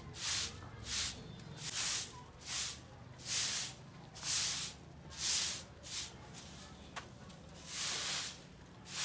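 Short handheld straw broom sweeping a dusty floor in repeated swishes, about one a second, with a short break before the last two strokes.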